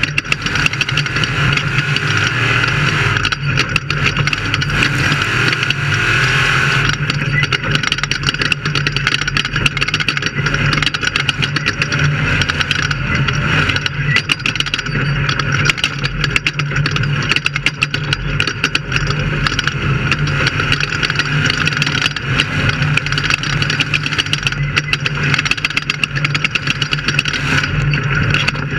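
Off-road race vehicle's engine running hard at a steady pitch, with continual rattles and knocks over the top.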